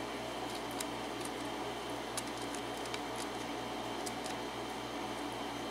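Faint, scattered light clicks of a steel pick working the pin stacks of a Kwikset 6-pin cylinder lock under tension, over a steady hiss and low hum.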